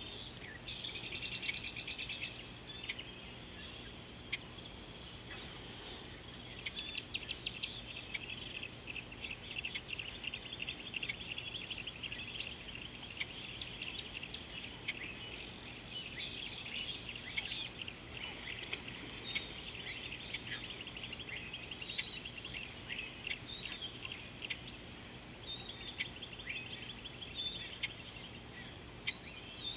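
Wild birds chirping and singing continuously in fast trills and short repeated calls, over a faint steady low hum.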